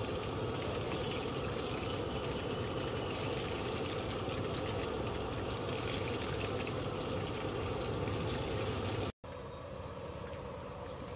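Vadas deep-frying in hot oil in an iron kadhai: a steady sizzle with fine crackling. About nine seconds in the sound drops out for an instant and comes back quieter.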